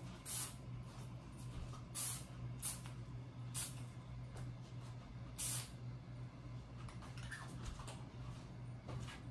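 About five short spritzes from a spray bottle, quick hissing bursts a second or so apart, most in the first six seconds, over a steady low hum.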